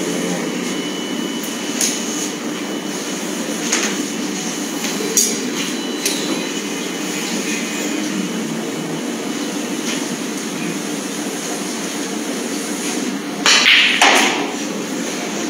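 Snooker balls clacking together near the end as the cue ball is struck into the pack of reds, a short cluster of sharp clicks. It sits over the steady low murmur of a hall.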